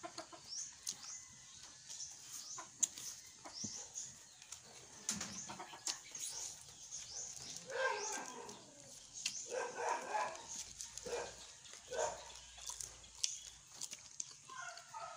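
Close-up eating sounds: chewing and wet mouth clicks and smacks while eating with the hands. An animal calls in the background a few times, around the middle and again near the end.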